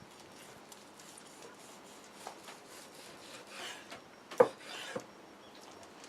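Handling noises at a wooden board: light rubbing and small clicks, a short scraping swell, and one sharp knock about four and a half seconds in, followed by a lighter click.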